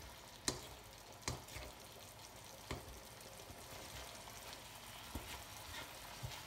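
Ground beef with onion and coriander frying in a nonstick wok with a faint steady sizzle, stirred with a spatula that knocks and scrapes against the pan several times.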